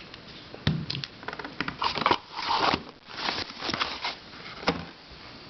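Plastic twisty puzzles and their packaging being handled: a run of irregular clicks and knocks with a few short stretches of rustling and crinkling in the middle.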